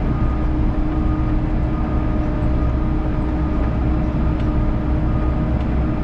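Volvo EC60E mini excavator's diesel engine running steadily, with an even low drone and a faint steady hum above it, heard from the operator's seat.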